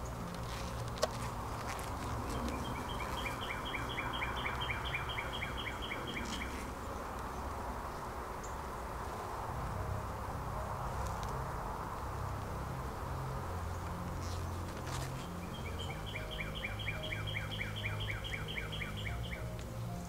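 Honeybee colony humming steadily from the open hive as a frame of bees is lifted out, with one sharp tick about a second in. A bird sings a trill of rapid repeated notes twice.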